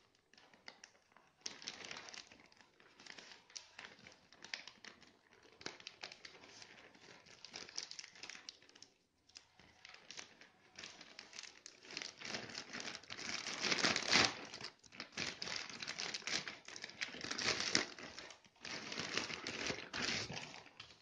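Plastic courier mailer bag crinkling and rustling as it is handled and opened by hand: irregular crackling, sparse and soft at first, then denser and louder in the second half, loudest about two-thirds of the way through.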